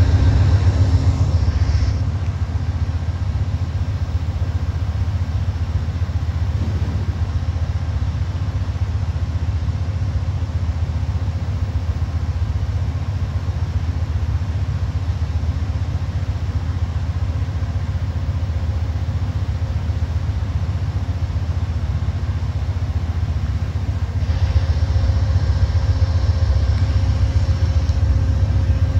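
Amtrak GE Genesis diesel-electric locomotive running steadily: a deep, even rumble with a faint steady hum over it, louder for the first two seconds and again for the last few seconds.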